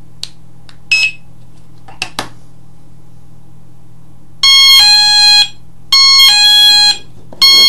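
Wireless driveway alarm receiver sounding a loud two-note signal, a higher note then a lower one, three times in a row. A few short clicks come first.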